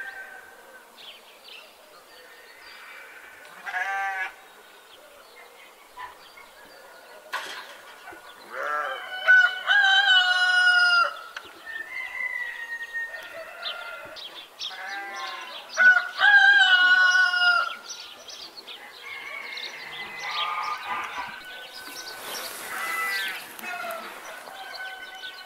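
Farm animal calls: bleating, loudest in two long calls in the middle, with chickens clucking between them and a single sharp click.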